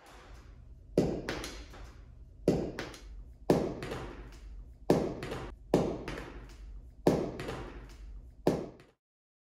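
A baseball being fielded on short hops: seven sharp smacks of the ball off the floor and into a fielder's glove, roughly one every second or so with a few softer taps between, each ringing briefly in the hallway over a low steady hum.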